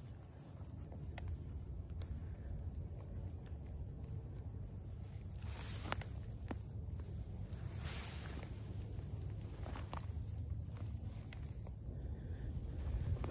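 Steady high-pitched chorus of insects, with a steady low rumble underneath. Two brief noisy swishes come about five and eight seconds in.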